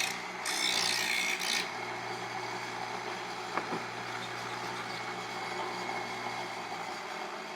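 Bench grinder running with a steady hum. A steel hook-scraper blade is touched to the grinding wheel twice in the first second and a half, giving two short grinding hisses, to take away the burr. A faint click a little past halfway.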